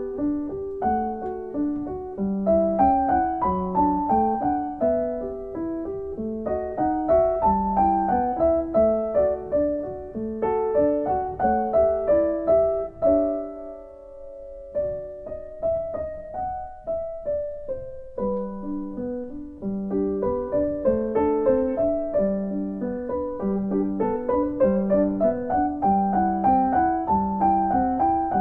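Piano music: a flowing pattern of repeated notes over a recurring low bass note. The bass drops out for a few seconds about halfway through, then returns.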